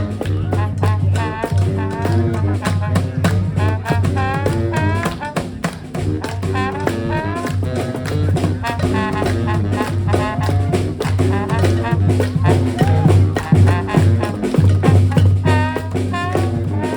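Brass band playing live: horns carrying a wavering melody over a low bass line and a steady drum beat.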